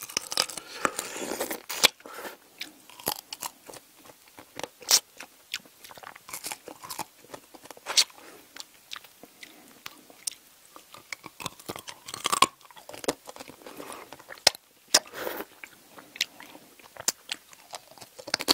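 Close-miked chewing of braised seafood and bean sprouts, with many sharp, irregular crunches and wet mouth sounds.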